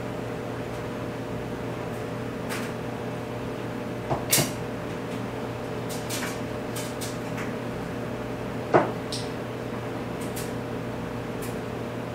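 Hand injection of liquid plastisol into an aluminium swimbait mold: a few sharp metallic clicks and knocks from the injector seated in the mold's port, the loudest about two-thirds of the way through, over a steady background hum.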